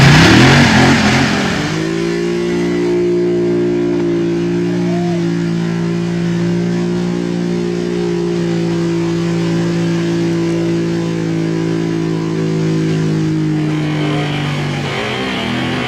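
Quad (ATV) engine revving loudly for the first couple of seconds, then running at a steady, even pitch for a long stretch while the machine churns through mud. It revs up again near the end.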